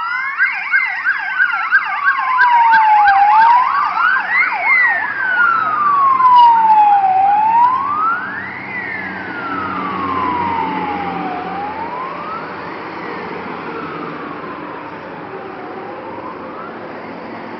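Emergency sirens on a passing fire-service convoy. A slow wail rises and falls about every four seconds, and a second, fast yelping siren sweeps about four times a second during the first few seconds. After about eight seconds the wail grows fainter while heavy truck engines rumble past.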